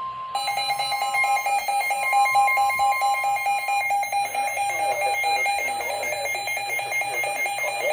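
Rapid electronic alert beeping of an emergency weather alert for a severe thunderstorm warning. A steady single warning tone sounds underneath for the first few seconds, then stops.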